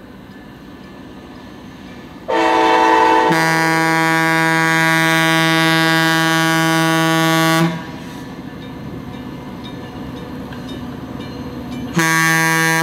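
Diesel locomotive air horns sounding for a grade crossing as two trains approach. One horn starts a little over two seconds in and a deeper one joins about a second later; both stop together just before eight seconds. Between the blasts the trains rumble, and a horn sounds again near the end.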